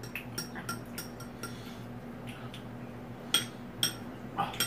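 Eating utensils tapping and clinking against dishes in a run of light clicks, with two sharper clinks a little past three seconds in and about half a second later, over a faint steady hum.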